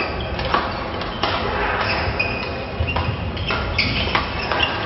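Badminton rally on an indoor court: several sharp smacks of rackets striking the shuttlecock, spaced roughly a second apart, with short squeaks of shoes on the court floor between them.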